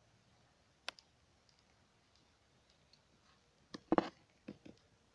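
A few sparse, sharp clicks and knocks: a single one about a second in, then a louder quick cluster about four seconds in followed by two smaller ones.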